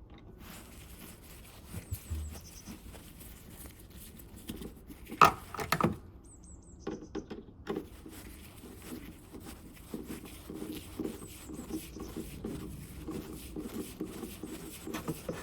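A screw being turned back in to hold the rear light cluster: a few sharp clicks and knocks, then a run of quick small ticks and scrapes as it is driven home.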